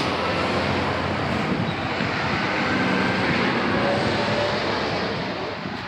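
A steady engine drone with a low hum. It swells in at the start and eases off a little toward the end.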